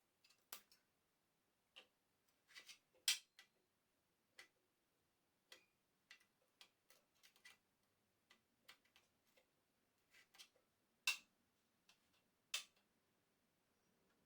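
Irregular light clicks and taps against near silence, with three louder sharp knocks: a little after three seconds, about eleven seconds in, and about a second and a half later.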